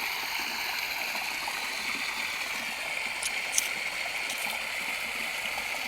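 Steady rush of flowing water from a small stream, with two brief clicks a little past three seconds in.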